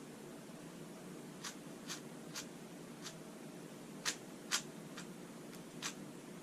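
Faint plastic clicks of a 4x4 speed cube being turned by hand, about eight short clacks at uneven intervals.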